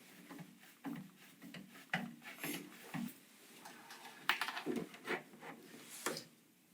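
Irregular clicks, taps and rubbing of PC parts being handled and fitted together during assembly, with a few sharper knocks, the loudest a little after four seconds in.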